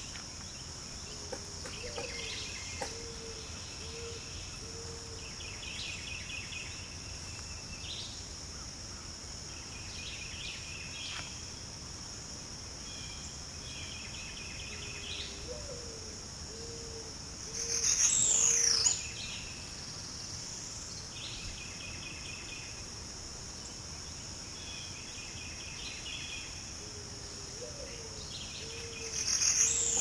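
Woodland ambience: a steady high insect drone with short bird song phrases repeating every few seconds. A low hooting call, rising then repeated on one note, comes three times. Two louder calls sweeping down in pitch are the loudest sounds, a little past halfway and at the very end.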